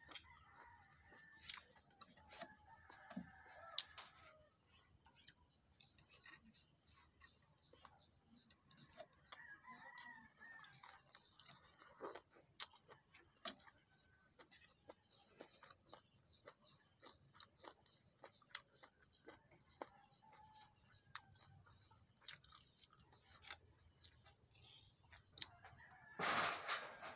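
A rooster crows in the background twice, near the start and about ten seconds in, over scattered small mouth clicks of chewing. A brief loud noise comes near the end.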